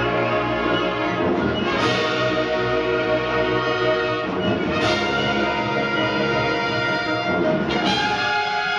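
Concert band playing loud sustained brass-heavy chords, punctuated by three sharp percussion accents about three seconds apart.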